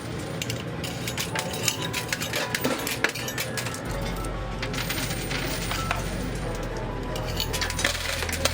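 Quarters clinking and dropping in a coin pusher machine: many quick, irregular metallic clicks as coins fall onto the metal playfield and against each other, over steady background music.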